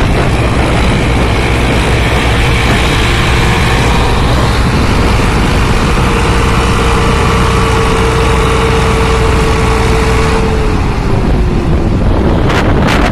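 Massey Ferguson tractor diesel engines running hard under load, pulling a trolley bogged in mud. It is a loud, steady drone, with a whining tone that falls in pitch from about ten seconds in, and a few sharp knocks near the end.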